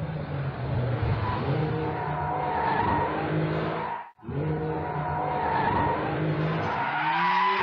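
2022 Porsche 911 GTS (992), its turbocharged three-litre flat-six running hard through the sports exhaust, revs rising several times as it accelerates, with tyres squealing through the corners. The sound breaks off for a moment about four seconds in.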